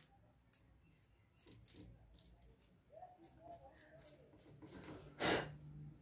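Faint clicks and light handling noises as the kitchen scale's circuit board, wires and plastic housing are moved about on a workbench, with one louder, brief rustling knock a little after five seconds in.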